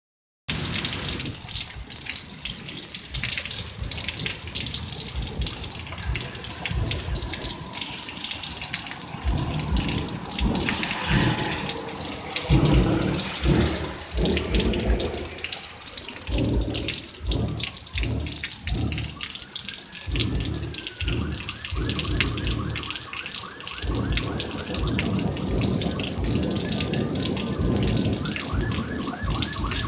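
Rain falling and dripping, a steady hiss with many close drops pattering. About two-thirds of the way through, a siren starts up and wails up and down.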